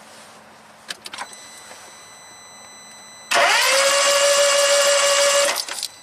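A few faint clicks about a second in, then a 2016 smart car's engine cranks on its starter for about two seconds without firing: a whine that rises quickly and then holds an even pitch. It cranks this fast and even because the engine has almost no compression, its cam timing far out.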